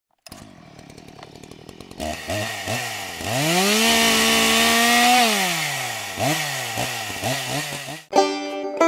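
Chainsaw engine running at idle, then blipped several times and revved up to full speed, held there for about two seconds, and dropped back, with more short revs after. It cuts off abruptly near the end, where banjo music begins.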